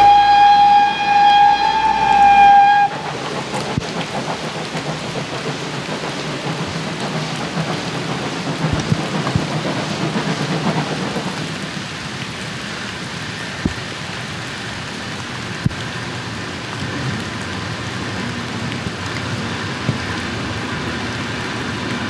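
Steam locomotive whistle blowing one long blast that slides up at the start and cuts off about three seconds in, followed by a steady rushing noise with a few faint knocks.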